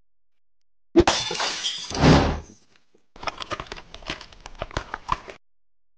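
Cartoon sound effects: a sudden loud noisy burst about a second in, lasting about a second and a half, then about two seconds of rapid crunchy chewing and munching.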